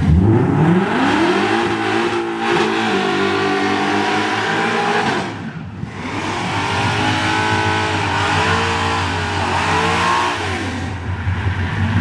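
Small-block V8 in an old pickup truck revving up hard and held high during a burnout, with a noisy haze over the engine. Later it is blipped up and down several times before dropping to a lower, steady run near the end.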